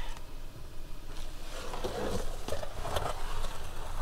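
Rustling and scraping as a soaking-wet piece of carpet is pulled up off the van floor by hand, with a few light knocks, busiest in the middle.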